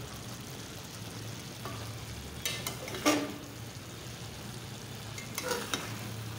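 Spatula stirring chicken mince and peas in a metal pan over a low sizzle, with a few sharp scrapes and knocks against the pan about two and a half, three and five and a half seconds in.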